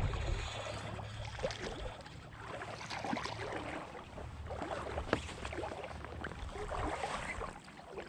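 Creek water splashing and sloshing irregularly as a hooked trout is fought close in, with sharper splashes about a second and a half and about five seconds in. A steady low rumble of moving water and wind runs underneath.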